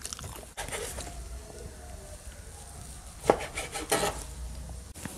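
Knife cutting through baked cassava cake on a cutting board: soft scraping and sawing of the blade through the cake, with two sharp knocks of the knife on the board past the middle.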